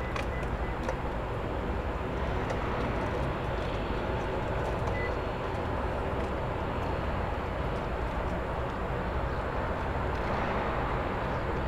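Steady rushing rumble of distant jet aircraft engines at an airport, holding an even level without rising or falling.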